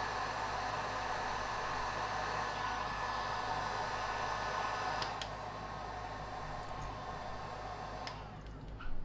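Electric heat gun running with a steady whirring blow. A click about five seconds in brings the sound down a little, and a second click just after eight seconds cuts it off.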